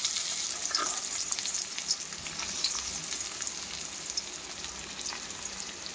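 Chopped onion sizzling in hot oil in a kadai: a steady hiss with scattered small crackles, easing off slightly as it goes.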